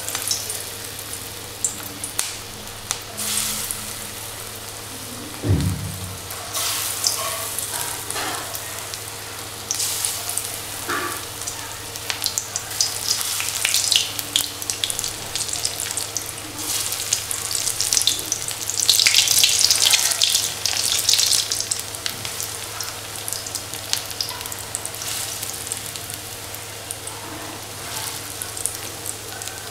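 Masoor dal fritters (bora) sizzling and crackling in hot mustard oil in an aluminium kadai as lumps of batter are dropped in by hand. The sizzle swells and fades, loudest about two-thirds of the way through.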